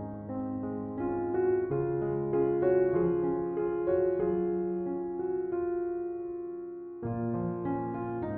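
Background piano music: slow, gentle melody over sustained chords, briefly dipping in level near the end before the next phrase starts.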